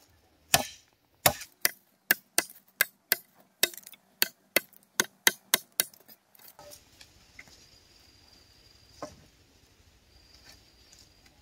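Wood being chopped: about fourteen sharp blows, two to three a second, which stop about six seconds in, then a single knock near nine seconds.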